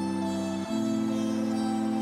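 Background music: calm new-age music, a sustained chord that changes about two-thirds of a second in, with soft melody notes above it.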